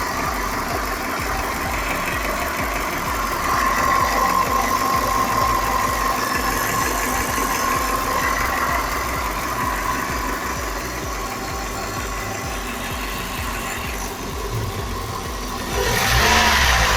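Toyota 3S-FE inline-four engine running steadily, getting louder near the end.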